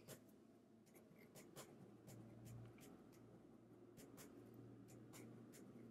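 Faint scratching of handwriting on paper, in short irregular strokes.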